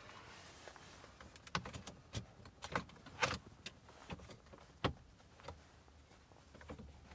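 Plastic trim frame of a car head unit being pressed onto the dashboard: a scatter of light plastic clicks and knocks, the sharpest a little past three seconds and near five seconds in.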